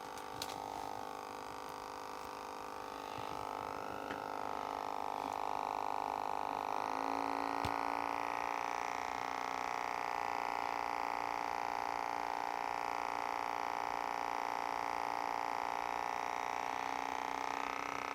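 Fan of a homemade cooling stand running with a steady, humming whine. It grows louder over the first several seconds, and a lower tone joins in about seven seconds in, after which it holds steady. This is the abnormal noise the stand is making. A few faint clicks come early on and once near the middle.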